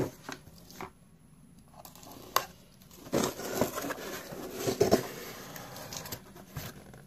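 A cardboard mailer box being opened: packing tape cut with a pocketknife, then the cardboard lid lifted and scraped, with rustling and crinkling. There is a sharp click about two and a half seconds in, and the rustling is loudest near the end.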